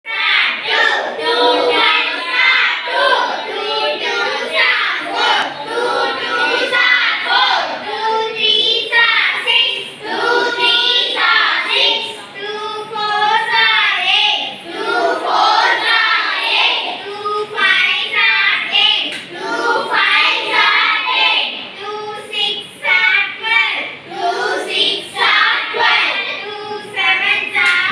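A group of schoolchildren chanting a multiplication table aloud in Tamil together, in a sing-song rhythm.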